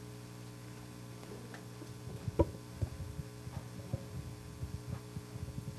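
Steady electrical mains hum from a room's sound system, with scattered faint thumps and clicks from about two seconds in, the handling noise of a microphone that is not working.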